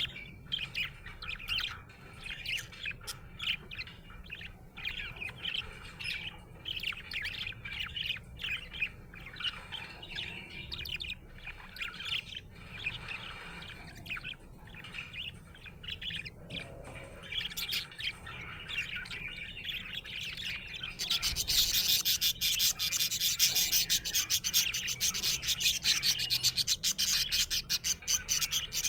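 Budgerigar chirping and chattering in quick short notes. About two-thirds of the way in, a louder, harsh scratchy rasping sound sets in and carries on alongside dense chirping.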